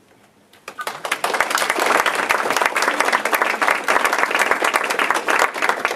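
Audience applauding: many people clapping, starting up about a second in and keeping up steadily.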